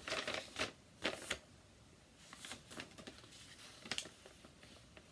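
A sheet of paper rustling and crackling in the hands as a letter is folded, in several short rustles, the last and sharpest about four seconds in.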